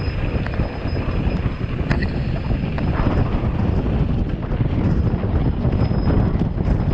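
Strong wind buffeting the microphone during a desert sandstorm, a steady low rumble with scattered small clicks and rattles.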